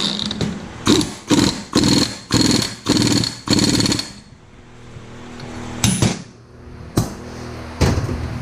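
A tool working on the engine's fasteners: five short rattling bursts about half a second apart, then three separate sharp clacks.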